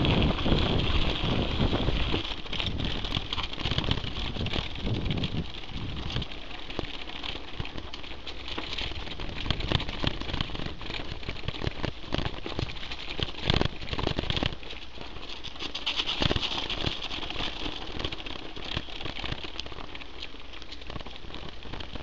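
Mountain bike riding over a dirt and gravel track: tyres crunching, with frequent sharp clicks and rattles over bumps. A heavy low rumble in roughly the first six seconds eases after that.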